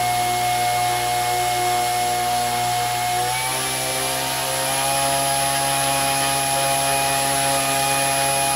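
A 2830-size 750 KV brushless motor spinning a propeller on a thrust test stand, with a steady motor whine. About three and a half seconds in, the pitch rises and settles higher as the throttle is stepped up from 2 A toward 3 A.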